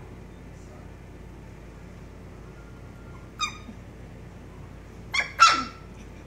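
Poodle puppies giving short high-pitched yips: one about halfway through, then two more in quick succession near the end, the last one the loudest.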